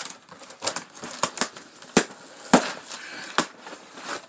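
Cardboard shipping box being pulled open by hand: flaps scraping and snapping, with crinkling packing paper. An irregular run of sharp cracks and knocks, the loudest about two seconds in.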